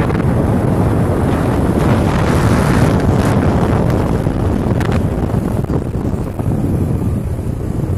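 Heavy wind buffeting and rushing over the microphone of a camera moving along at road speed, a loud steady rumble with no clear engine note.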